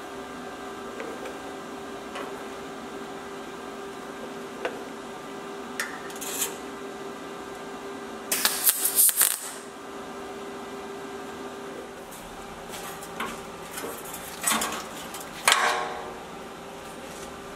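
MIG welder laying a spot weld on thin sheet steel, a crackling burst of about a second that comes about eight seconds in over a steady low hum. Shorter noisy bursts follow near the end, with a few small clicks earlier.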